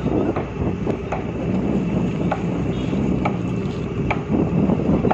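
Steady low rumble of a passenger boat's engine and hull heard from on board, with a few faint light clicks scattered through it.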